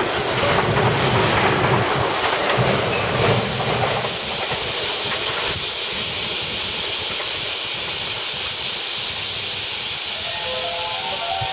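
A JR West 225-series electric train runs past close alongside the platform, its wheels rumbling over the rails. About five seconds in, the rumble gives way to a steady high hiss as another train approaches in the distance.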